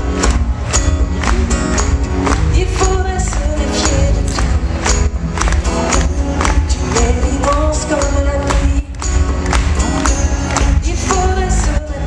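Live pop song played on acoustic guitars with a steady percussive beat and a man singing, heard from the audience through a heavily booming, bass-heavy recording.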